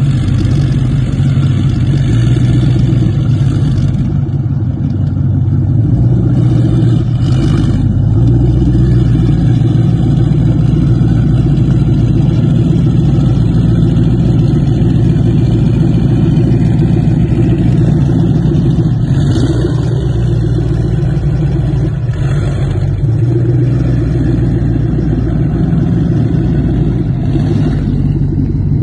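The engines of a Cigarette Racing go-fast speedboat running with a loud, steady, deep rumble at idle while the boat moves slowly.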